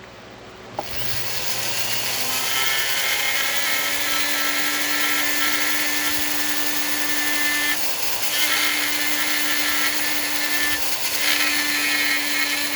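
Dremel rotary tool spinning up about a second in, then running steadily with a constant whine while its bit grinds into the wood, carving a board's raised laces. The grinding changes briefly twice, near the middle and later on.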